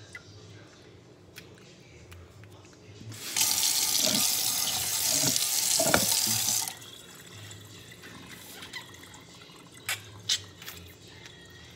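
Kitchen tap running in a steady rush for about three and a half seconds, starting and stopping abruptly.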